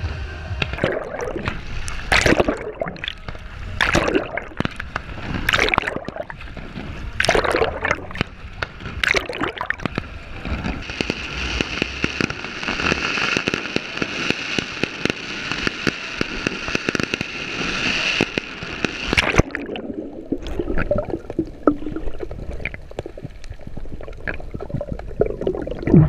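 Water sloshing and gurgling around a GoPro camera held by a swimmer at the surface, with repeated sharp firework bangs. A steady hiss runs through the middle for about eight seconds.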